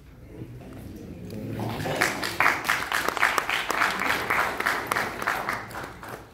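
Audience applauding: the clapping swells in about a second and a half in, holds as many individual claps, and fades out near the end. Low voices are heard before it starts.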